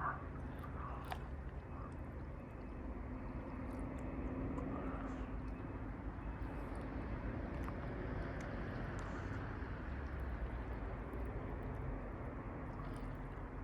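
Steady low background rumble, with a faint hum from about three to six seconds in and a few light clicks.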